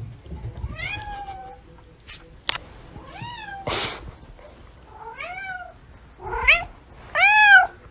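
Domestic cat meowing five times, each call rising then falling in pitch, the last two the loudest. A sharp click about two and a half seconds in and a brief rush of noise about a second later.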